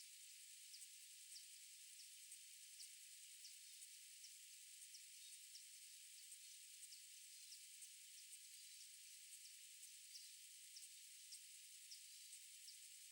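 Near silence: a faint steady hiss with faint, short, high ticks about twice a second.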